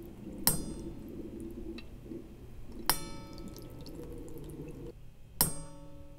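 A thin stream of water trickling into a nearly empty clear plastic cup, with three sharp drop-like plinks about two and a half seconds apart.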